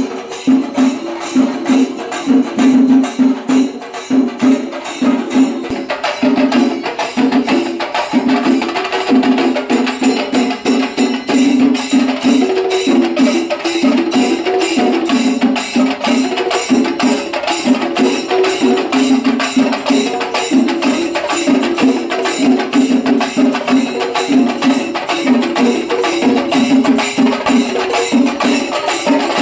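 Loud music of fast, steady percussion strokes with a pitched melody running over them, without a break.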